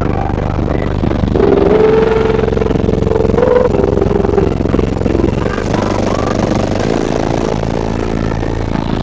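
Loud, bass-heavy music playing on a car audio system, with a long held note about a second in.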